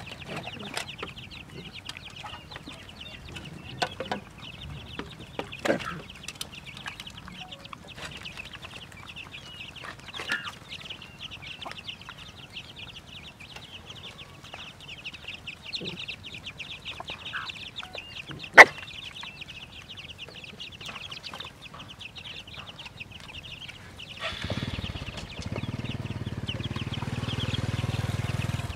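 Chickens clucking and chicks peeping steadily over the small clicks and crunches of dogs eating from bowls. One sharp knock stands out about two-thirds of the way through, and a louder low steady noise sets in near the end.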